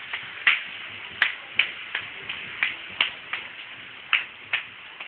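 Footsteps on pavement: a string of short, sharp taps, roughly two a second and unevenly spaced.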